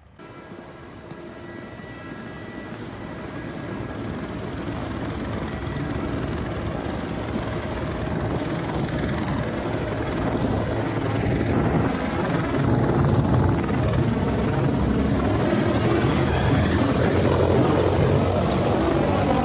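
Military twin-turbine helicopter running, its engines and rotor growing steadily louder, with the rotor's beat coming through in the second half.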